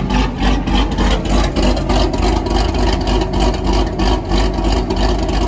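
C7 Corvette Z06's supercharged 6.2-litre LT4 V8 idling through its exhaust with a choppy lope from a Stage 2 camshaft, its note swelling and dipping about twice a second.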